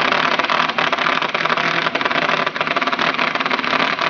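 Cordless power drill driving a self-tapping screw into the truck's sheet-metal roof, the motor running steadily under load with a fast rattling chatter.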